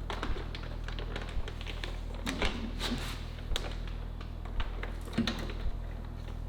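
Scattered light clicks and taps from hands handling small parts and wiring connectors, irregularly spaced, over a steady low hum.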